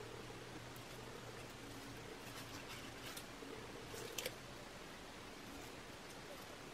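Faint rustles and light ticks of paper pieces being handled and laid on a journal page, with a sharper double click about four seconds in, over a faint steady hum.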